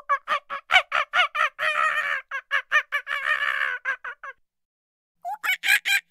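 Squirrel monkey giving a fast run of short, high chirps, about six a second, with two stretches of harsher chattering in the middle. The calls break off for about a second near the end, then start again.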